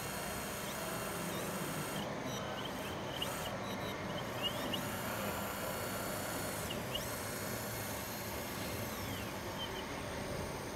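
Radio-controlled Komatsu PC270 model hydraulic excavator working, its electric hydraulic pump and motors whirring steadily while it digs and swings, with several short rising and falling whines as the controls are moved.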